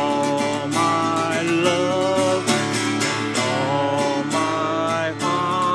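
Acoustic guitar being strummed and picked, with a man's voice carrying a wordless melody in long held notes over it.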